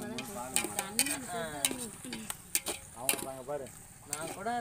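A long metal spoon stirring onions and tomatoes frying in a large aluminium pot, with a sizzle and repeated sharp clicks and scrapes of the spoon against the pot. This is the biryani masala being sautéed until the tomatoes soften. Voices talk in the background.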